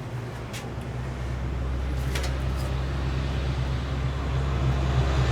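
A steady low mechanical hum that grows slightly louder, with a couple of light clicks of tools on metal.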